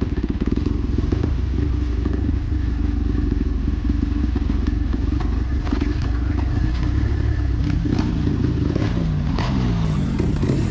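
Dirt bike engine running while riding a trail, with frequent knocks and rattles. Near the end it revs up several times in quick rising sweeps.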